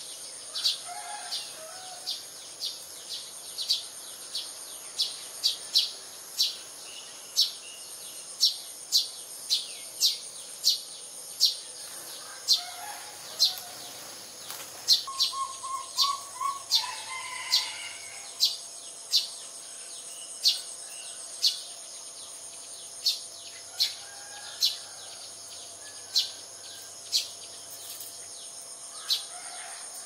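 Sparrows chirping: short, sharp, evenly repeated chirps, about one or two a second, with a few brief softer calls among them.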